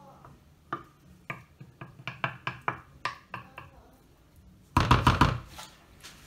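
Wooden spoon knocking and scraping against a ceramic baking dish as it spreads and pats down a vegetable gratin mixture: a run of light knocks, then a louder clatter about five seconds in.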